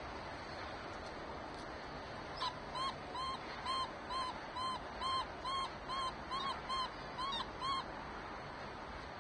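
Peregrine falcon calling a run of about thirteen short, harsh notes, about two a second, starting a couple of seconds in and stopping near the end, over a steady hiss.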